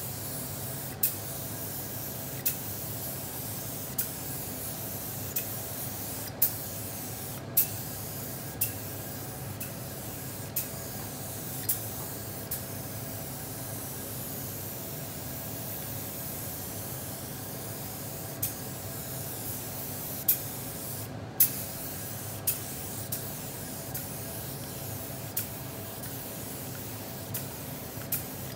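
DeVilbiss SRi Pro Lite gravity-feed spray gun hissing steadily on compressed air while spraying a coat of clear leather lacquer. Sharp clicks come every second or two, and the hiss stops briefly a few times.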